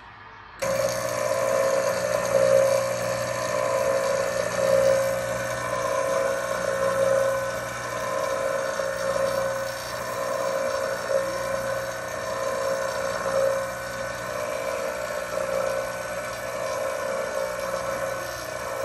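Gee espresso machine's water pump switching on about half a second in and running with a steady hum.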